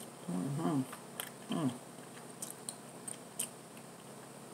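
Close-miked chewing with scattered short, sharp mouth clicks. Two brief hummed voice sounds come in the first two seconds, the second sliding down in pitch.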